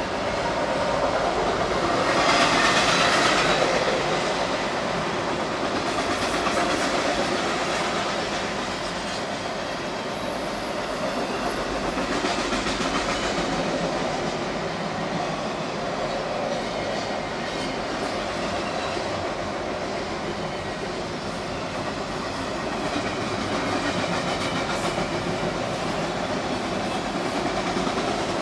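Long CSX intermodal freight train's container cars rolling past, a steady rumble and clatter of steel wheels on the rails that swells a little about two to four seconds in.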